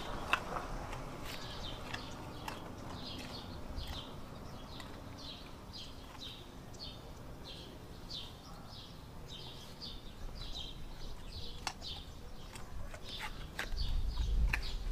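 A small bird chirping over and over, short high calls about two a second. Scattered sharp clicks, and a low rumble near the end.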